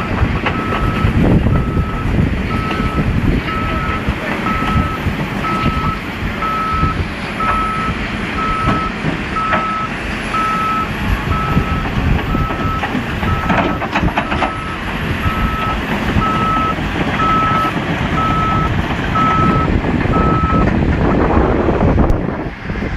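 Reversing alarm on a heavy machine beeping a single steady tone, about one and a half times a second, over the machine's engine running. The beeping stops near the end.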